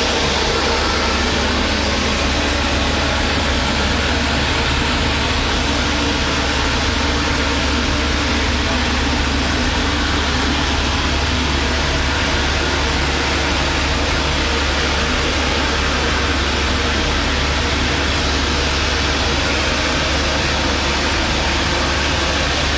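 Loud, steady machinery noise with a deep hum underneath, unchanging throughout.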